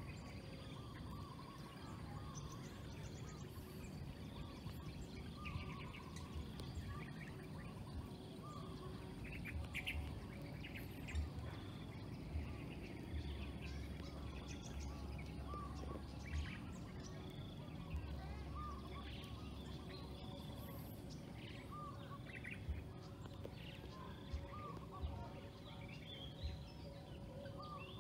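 Birds calling in the evening, with many short chirps repeated again and again over a steady outdoor background. There are a couple of low rumbles midway and a few sharp clicks near the end.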